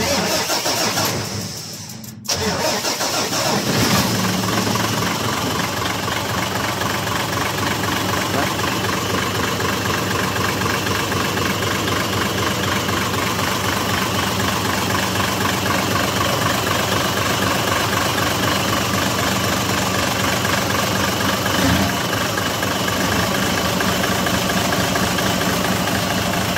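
Mitsubishi Fuso 6M70 six-cylinder diesel engine being started: after about two seconds of cranking it catches and then settles into a steady idle.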